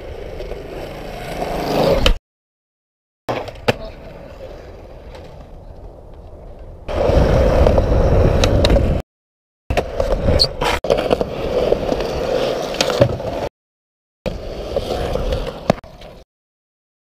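Skateboard wheels rolling on concrete, with sharp clacks from board pops and landings. It comes in several short bursts broken by gaps of dead silence where the audio cuts out.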